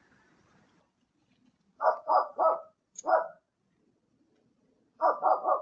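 A dog barking: three quick barks, a fourth a moment later, then a fast run of barks starting near the end.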